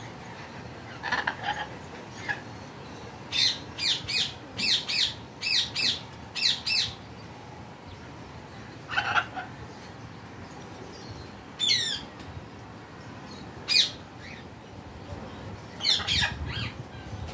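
Blue-and-gold macaw giving short, harsh squawks: a quick run of about nine calls a few seconds in, then single calls a few seconds apart and a small cluster near the end.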